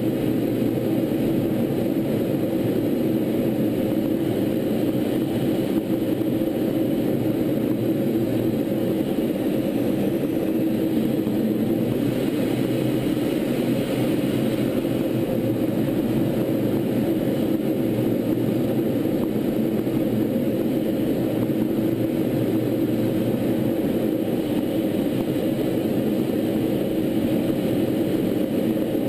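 Steady in-flight drone of a T-38 Talon twin-jet trainer, engine and rushing-air noise picked up by a camera on board, with a low hum running through it and no change in level.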